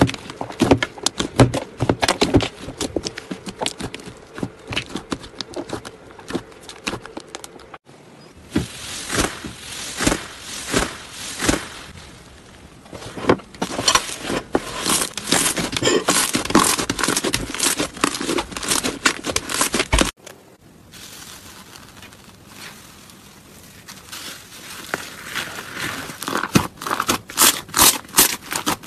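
Crunchy slime being squeezed and worked by hand, making dense crackling and popping clicks. It comes in three separate clips, with sudden cuts about 8 and 20 seconds in.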